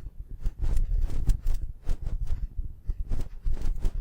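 Irregular soft clicks and knocks, several a second, over low thumping rumble.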